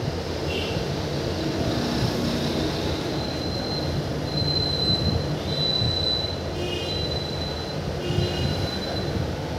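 Train running on the rails: a steady low rumble, with a thin high wheel squeal that comes and goes from about three seconds in.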